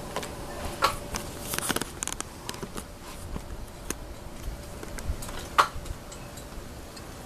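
Irregular small clicks and taps of an RV entry door lock's hardware and screws being handled and fitted, with a sharper knock about five and a half seconds in.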